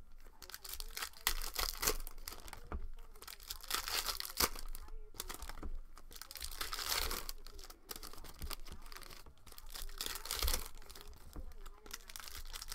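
Plastic wrappers of trading-card packs crinkling and tearing as they are opened by hand, with the cards inside handled, in irregular crackles.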